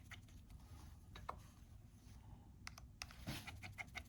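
Faint scattered clicks and taps of a tri-wing screwdriver and tiny phone screws being taken out and set down on a work mat, with a small cluster of clicks near the end.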